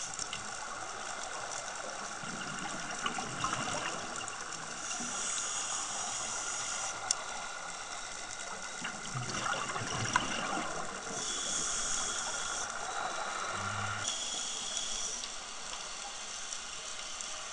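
Scuba diver breathing through a regulator underwater: slow breaths of hissing inhalation through the demand valve, a few seconds apart, alternating with the bubbling rush of exhaled air. A couple of sharp clicks fall in between.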